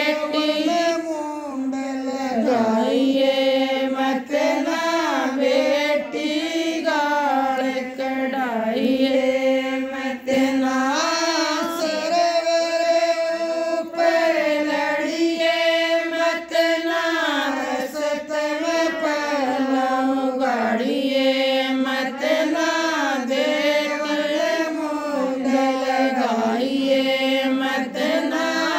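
A woman singing a Rajasthani jakhri folk song solo, with no instruments, in long phrases whose pitch bends and wavers.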